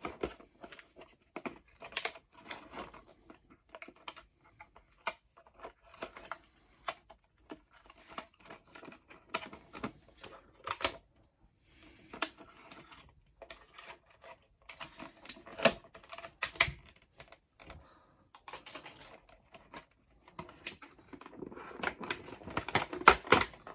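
Plastic toy packaging handled while twist ties are untwisted from an action figure: irregular clicks, taps and crinkles of plastic, with a louder flurry near the end.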